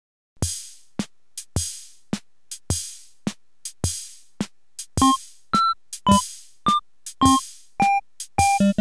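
Electronic intro theme music. A drum-machine beat starts about half a second in, and short synthesizer notes join it about five seconds in.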